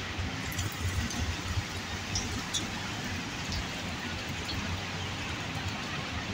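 Steady rain falling on the street and nearby surfaces, an even hiss, with a low hum underneath.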